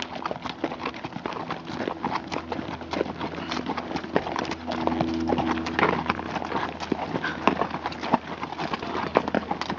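Several horses walking in single file on a hard, stony dirt trail, their hooves clip-clopping in an uneven, overlapping rhythm of several strikes a second.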